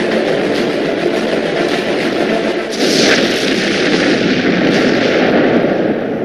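Loud, dense rumbling sound effect of the explosion or artillery kind, with a rushing whoosh about three seconds in. It fades away near the end.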